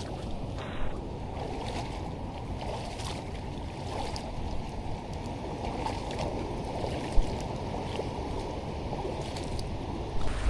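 Waves washing over a rocky shore with wind rumbling on the microphone, a steady noise throughout. A single sharp thump about seven seconds in.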